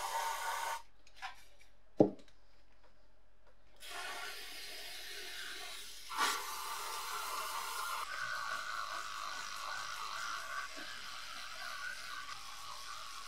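Hiss of water spraying on a rusty vise part, cut off under a second in, then a single sharp click about two seconds in, the loudest sound. An aerosol can sprays in a steady hiss onto the vise's steel tube for a few seconds. From about eight seconds in, a small handheld rotary tool runs against the tube with a steady whine.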